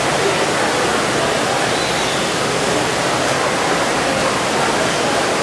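Steady rush of falling water, loud and unbroken.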